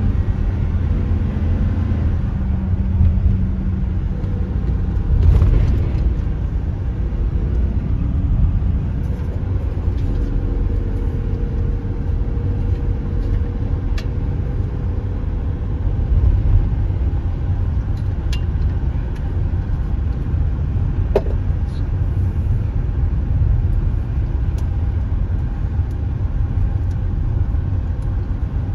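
Steady low rumble of a U-Haul box truck's engine and tyres on the road, heard from inside the cab, with a few short clicks along the way.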